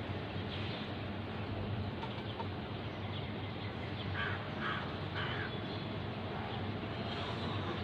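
A crow calling three short caws about four to five seconds in, over a steady low rumble of street traffic.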